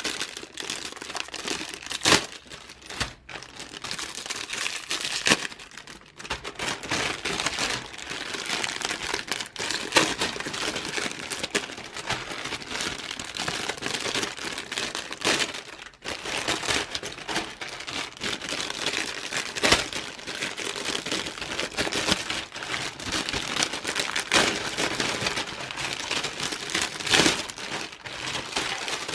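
Crinkling and rustling of the plastic bags that hold the model kit's runners as they are handled and opened, with a few sharper crackles.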